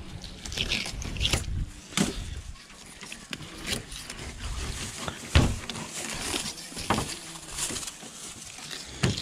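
Filleting knife slicing and scraping through a goldband snapper on a cleaning table, with scattered small knocks and a sharper thump about five seconds in and another near the end.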